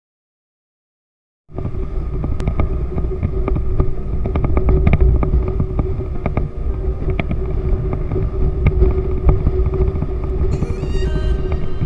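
Motor scooter riding at road speed, its engine drone under a strong low rumble of wind on the camera, starting about a second and a half in. A brief high-pitched tone sounds near the end.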